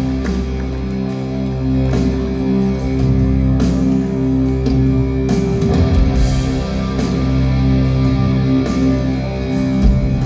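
A live rock band playing the instrumental opening of a song: electric guitars holding chords over a steady bass, with drum hits, through a concert PA.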